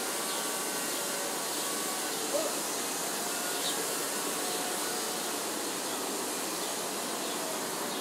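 Steady distant city ambience, an even hiss and hum of far-off traffic and activity, with a few faint short sounds about two and a half and three and a half seconds in.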